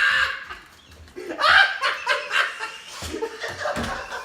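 A person laughing in short bursts.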